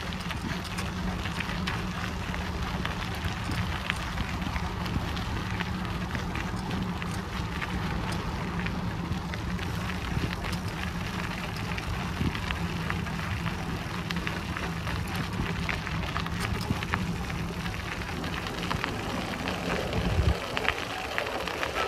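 Bicycle rolling along a forest path: a constant crackle of small ticks from the tyres over the ground, over a steady low rumble. Near the end the rumble cuts out after a knock.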